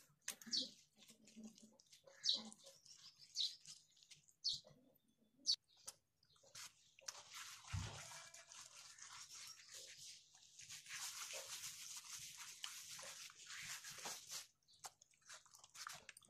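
A hand smearing and smoothing wet clay plaster over the side of an earthen chulha: short wet strokes about once a second at first, then a longer spell of steady rubbing, with a soft thump about eight seconds in.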